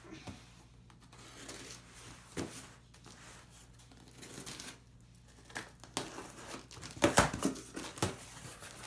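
Packing tape on a cardboard shipping box being cut and torn open, then the cardboard flaps pulled back. It is quiet at first with small scrapes; scratchy tearing and rustling builds later and is loudest about seven seconds in.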